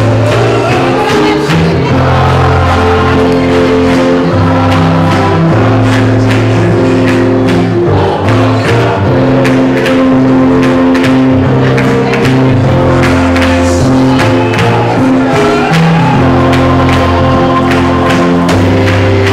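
Music with a steady beat and sustained chords, with singing voices.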